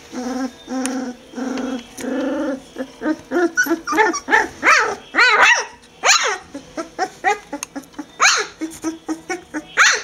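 Bouvier des Flandres puppies growling and yapping at play. A few short, steady growling notes come first, then a quick run of high, arching yips and barks from about three seconds in.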